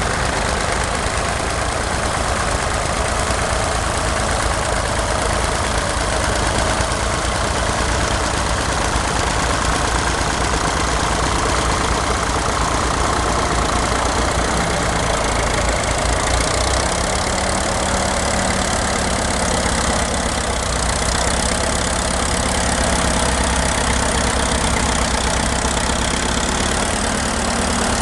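Vintage tractor engines running steadily under load while pulling ploughs, with a change in engine note about two-thirds of the way through.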